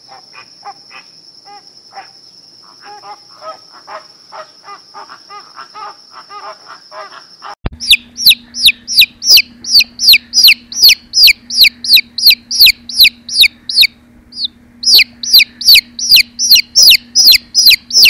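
A domestic chick peeping loudly in a rapid run of high, downward-sliding peeps, about three a second, with a short break partway through. Before that, flamingos call softly in short, rapid notes over a steady high tone.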